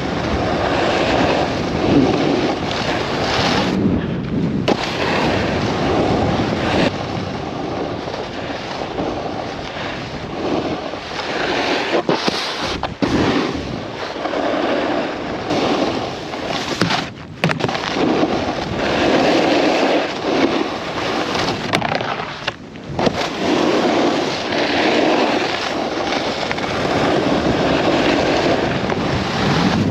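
Snowboard edges scraping and carving over hard-packed snow, mixed with wind rushing over a helmet-mounted action camera. The scraping swells and fades with each turn and breaks off briefly a few times.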